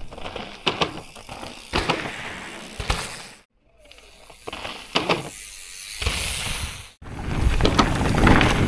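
Mountain bikes riding on a gravel and dirt jump track: tyres crunching and rolling, with scattered sharp clicks and knocks from the bikes. Two sudden short silences break it. In the last second and a half comes louder, steady tyre rumble and wind noise from a camera mounted on the handlebars while riding.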